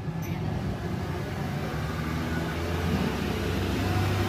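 Steady low engine hum from a running motor vehicle, growing a little louder in the second half.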